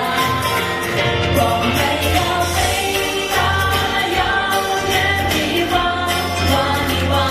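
Pop song performed live: a singer over accompaniment with a steady bass line and light percussion.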